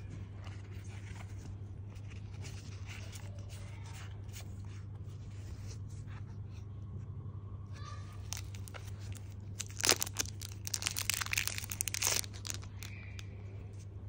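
Rustling and crinkling as a boxed Zippo lighter and its packaging are handled in nitrile gloves, with a loud burst of crinkles and sharp clicks about two seconds before the end as the lighter is taken out of its box, over a steady low hum.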